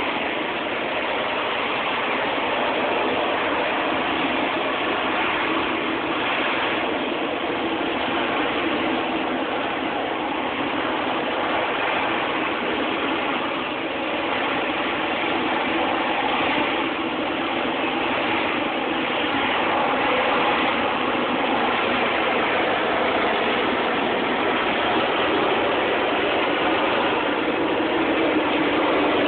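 Harrier jump jet's Pegasus turbofan running steadily at high thrust as the jet hovers low, a dense rushing jet noise heard through a mobile phone's microphone. It grows a little louder in the last few seconds as the jet climbs away.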